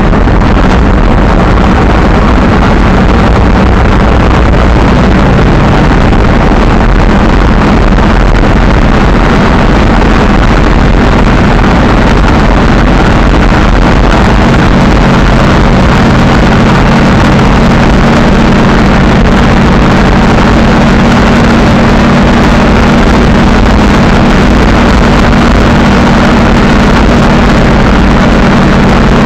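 Monster truck's engine running steadily while driving, heard from inside the cab, very loud, with its low engine note growing stronger about halfway through.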